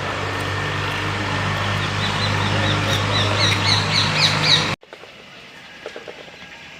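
Birds chirping: quick, high, short notes, several a second, getting louder over a few seconds above a steady low hum. Then the sound cuts off abruptly to a much quieter background with faint ticks.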